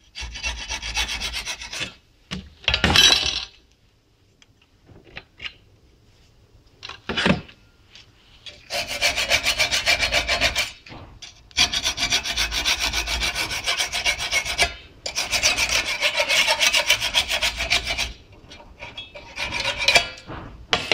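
A hacksaw blade scraped back and forth across a rusty steel handbrake lever clamped in a vise, rasping off the rust from the seized lever. The scraping comes in runs of a few seconds with short pauses, and a quieter spell of light knocks about four to eight seconds in.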